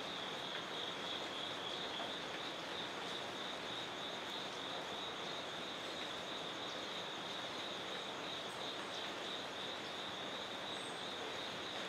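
Steady insect chorus: an unbroken high, slightly pulsing trill over a soft background hiss of outdoor ambience.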